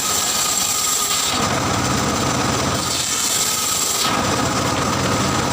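Circular saw cutting wood: a hissing cut through the timber, twice, alternating with the saw's lower steady running between cuts.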